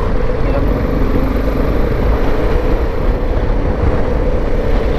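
BMW G 310 GS single-cylinder engine running steadily as the motorcycle rolls slowly through stalled traffic.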